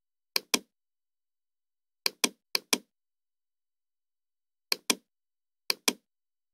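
Computer mouse clicks: five clicks, each a sharp press and release a fraction of a second apart, spaced out by complete silence.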